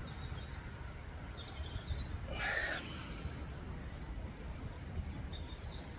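Outdoor ambience: a steady low rumble with faint, brief bird chirps scattered through, and one louder, rougher sound lasting about a second midway.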